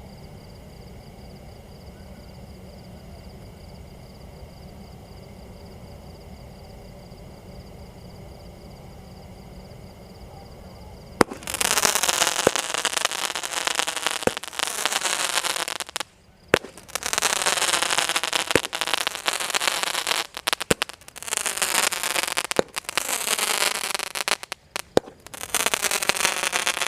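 Multi-shot 'jhoomar' firework cake going off: about eleven seconds in a sharp pop starts it, then it fires shot after shot, each a loud hiss and crackle lasting a few seconds, with short breaks between them.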